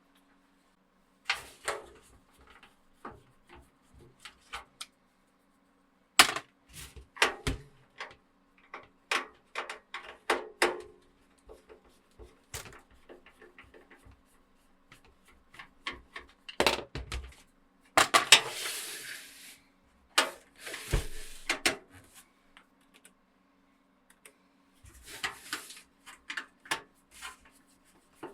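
Irregular clicks, knocks and clatter of metal and plastic PC case parts being handled while screws are undone and the case's feet are taken off, with a few short scraping rustles. A faint steady hum sits underneath.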